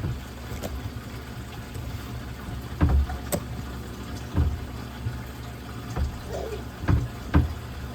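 Steady low hum and water noise of a reef aquarium's pumps, with several short knocks and taps spread through the middle and end.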